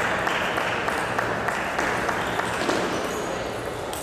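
Spectators applauding and cheering after a table tennis point is won, slowly dying down, with scattered sharp clicks through it.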